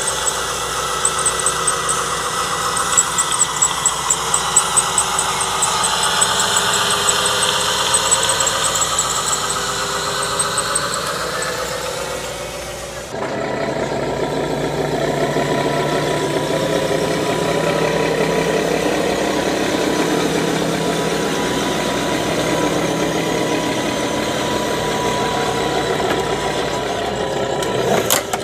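Radio-controlled scale trucks driving: a steady high whine from the electric drive motors and gearboxes over an engine-like drone. The sound changes abruptly about 13 seconds in, with a lower, fuller drone after the change.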